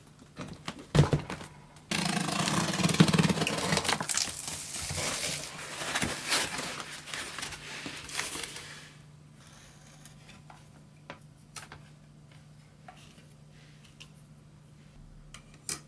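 Handling noises: a knock, then several seconds of rustling and scraping that stop about nine seconds in, followed by scattered small clicks over a faint low hum.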